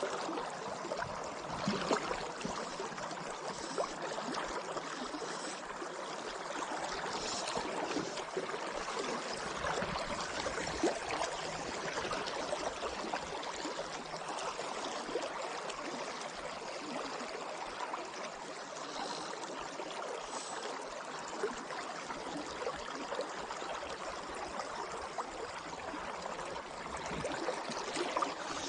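Steady rush and ripple of the South Platte River's current flowing past close by.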